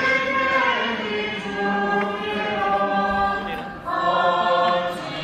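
Group of voices singing a hymn together in long held notes, with a brief break and a new phrase starting about four seconds in.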